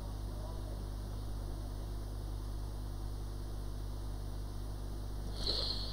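Steady low electrical hum under a constant hiss, with a short, high hissing sound about five and a half seconds in.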